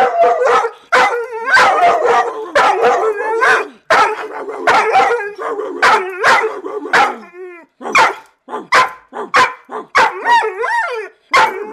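Dog barking loudly and repeatedly, a few barks a second, some of them drawn out into howling yowls.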